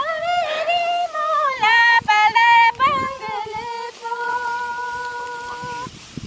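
A solo female voice singing a melody with quick ornamented turns, then holding one long steady note that stops shortly before the end.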